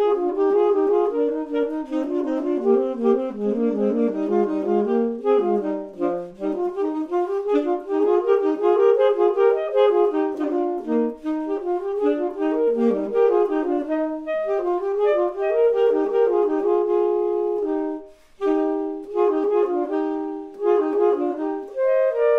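Two saxophones playing a duet, two interweaving melodic lines at 80 beats per minute, with a brief break about eighteen seconds in.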